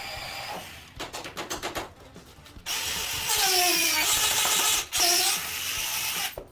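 Power tool running in bursts: a quick rattle of clicks, then a longer loud, hissy run that breaks off briefly before ending.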